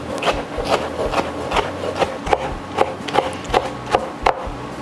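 Chef's knife slicing soft roasted red pepper into strips on a plastic cutting board, the blade tapping the board in an even rhythm of about two or three cuts a second.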